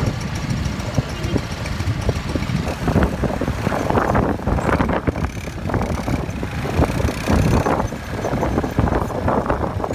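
Quad bike (ATV) engines running as the quads ride along a dirt track, with a dense, uneven low rumble.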